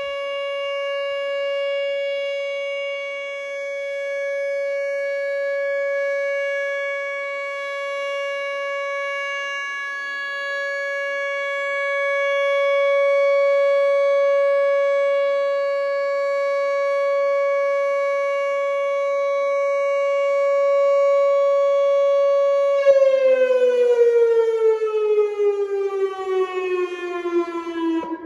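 Whelen WPS 2910 electronic outdoor warning siren sounding a steady tone during its monthly test, swelling and fading in loudness. About three-quarters of the way through, the pitch falls smoothly in a wind-down as the signal ends.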